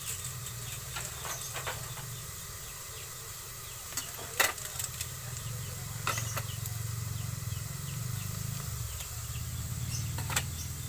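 Ground pork sizzling under a glass lid in a wok over a gas burner, a steady hiss over a low hum. A few sharp pops stand out, the loudest about four seconds in.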